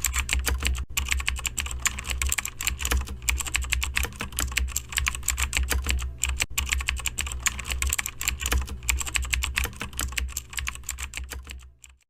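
Rapid, continuous typing on a computer keyboard, a dense run of irregular key clicks over a low hum, fading out and stopping just before the end.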